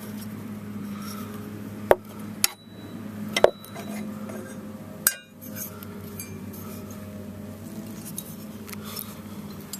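Pieces of a cut-open refrigeration filter drier (its desiccant core and rusty steel parts) handled and set down on a wooden board: four sharp clinks and taps in the first half, the loudest about two and three and a half seconds in, over a steady low hum.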